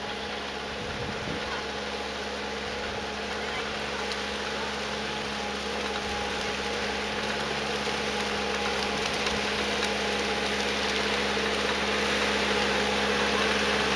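Compact tractor engine running at a steady pitch, growing louder as the tractor draws near.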